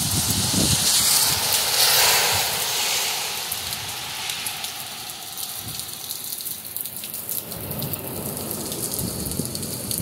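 Heavy nor'easter rain falling with a steady hiss. It is loudest in the first few seconds, then eases to a softer, even patter.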